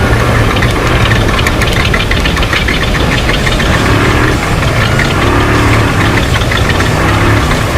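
Off-road race truck's engine running hard, with rattles and sharp knocks from the truck over rough ground, thickest in the first few seconds.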